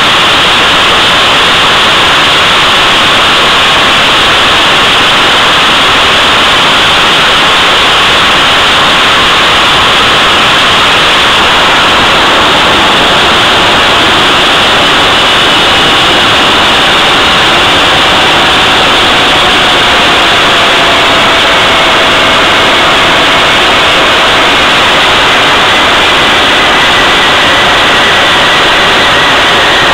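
Jet engine running on a thrust test stand: a loud, steady rushing noise, with a faint whine that slowly falls in pitch from about halfway through.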